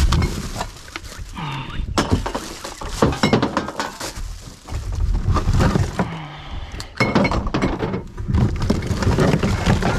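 Rubbish being rummaged through by gloved hands in a plastic wheelie bin: plastic bags and wrappers rustling, with repeated clinks and knocks of bottles and cans being moved.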